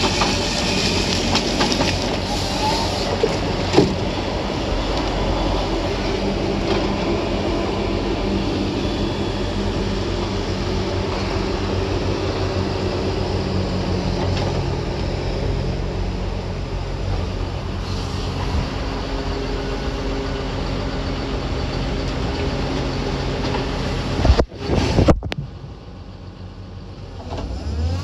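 Truck engine running with wind rushing over a phone held out of the cab window. Near the end, a few sharp knocks as the phone falls out of the window and hits the ground, after which the engine is heard fainter.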